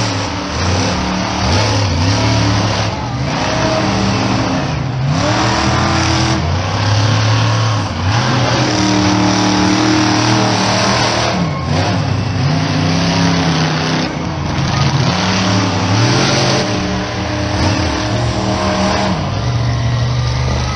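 Monster truck engine revving hard again and again, its pitch climbing and dropping every second or two, as the truck drives hard on dirt.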